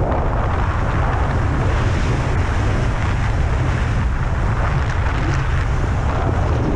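Steady rush of wind buffeting the camera's microphone, heaviest in the low end, as a tandem parachute descends under an open canopy.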